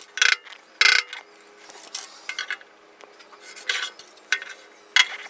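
Body hammer tapping on rusty sheet metal in irregular sharp knocks, with small metallic clinks between them: testing the rusted panel to find where it is still solid.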